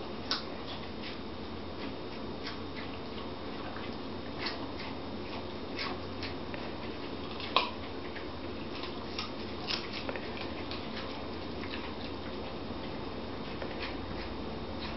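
Schipperke dogs chewing pieces of fresh carrot: irregular sharp crunches and gnawing clicks, the loudest about half a second in and about seven and a half seconds in, over a faint steady hum.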